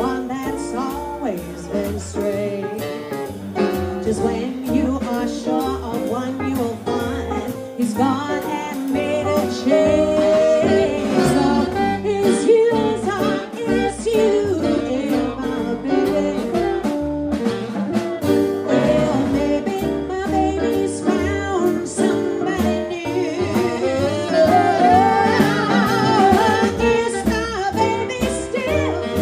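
Live small jazz combo playing: drums, double bass, piano, electric guitar and saxophone, with a wavering melody line on top.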